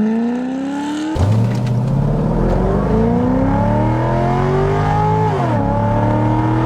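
Corvette C6 V8 under full-throttle acceleration, its note climbing steadily through the gears. It drops sharply at two upshifts, one about a second in and one about five and a half seconds in, then climbs again.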